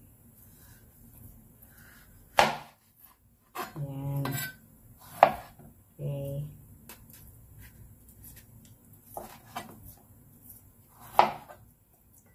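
A chef's knife slicing eggplant and striking a plastic cutting board: three sharp knocks, about two and a half, five and eleven seconds in, with fainter taps between. Two short vocal sounds come between the first knocks.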